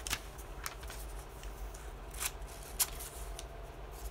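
Paper being handled on a table, with short, scattered scratching and rustling sounds over a faint steady hum.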